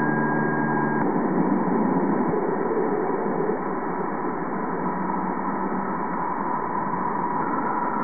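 Juno spacecraft's Waves instrument recording of plasma waves in Jupiter's upper atmosphere during a close flyby, slowed down 60 times into the audible range. It is a dense, eerie hiss with a steady held tone; several other tones stop about a second in.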